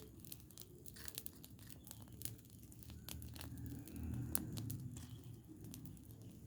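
Burning rubbish pile crackling, with many scattered sharp pops over a low rumble.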